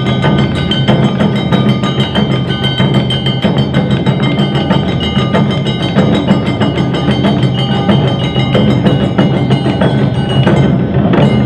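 Live Awa odori festival music: taiko drums beating a driving rhythm under a rapidly struck hand gong (kane), with steady high ringing tones over it.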